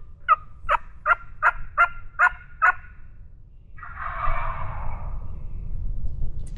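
Wild turkey calling: a run of about eight quick yelps, then about a second later a rough, rattling gobble lasting about a second and a half.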